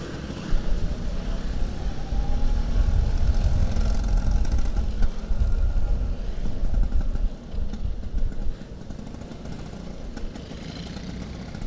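Vintage Vespa Super 150 scooter's two-stroke single-cylinder engine running as it rides through slow traffic, under a heavy low rumble. About seven and a half seconds in the rumble drops and the engine runs on more quietly.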